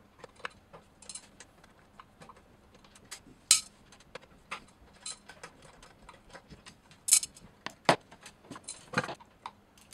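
Irregular light clicks and metallic taps, with a few sharper knocks along the way, as a Phillips screwdriver works screws out of a KitchenAid stand mixer's housing and the loose parts are handled.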